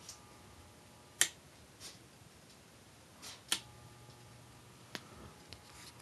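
Sharp clicks of a ceiling fan's wall switch being worked to set it to reverse, the two loudest about a second and three and a half seconds in, with a few lighter clicks around them. A faint steady electrical hum from the fan stops after the first loud click and comes back with the second.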